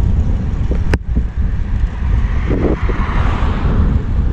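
Wind buffeting an action camera's microphone on a moving road bike, a heavy rumble with road hiss rising and falling. A sharp click about a second in.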